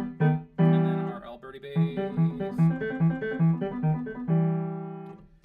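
Digital piano keyboard played: a few struck chords, then a steady repeating bass figure under higher notes, ending on a held chord that dies away near the end.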